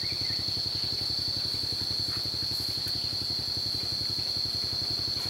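An engine idling with a rapid, even low putter, under a steady high-pitched insect drone.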